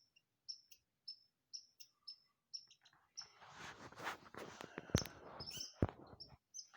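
Short high chirps repeating about twice a second, then rustling with two sharp clicks.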